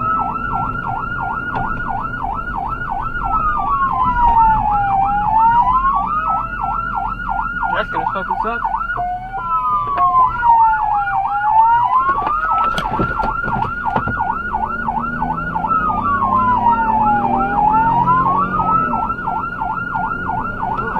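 Electronic emergency-vehicle siren, switching between a fast yelp and a slow falling-and-rising wail, over low engine and road rumble.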